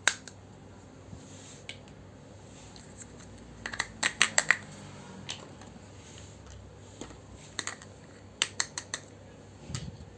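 Small hard toy pieces of a miniature kitchen set clicking and tapping as they are handled and set down: one sharp click at the start, a quick run of clicks about four seconds in, and another run near nine seconds, with scattered single taps between.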